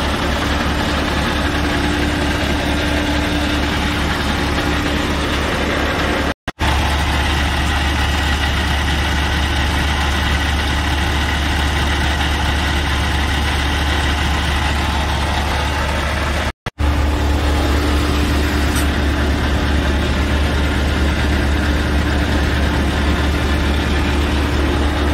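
Scania S730 truck's V8 diesel engine idling steadily, a deep even pulsing heard close under the chassis. It breaks off for a moment twice.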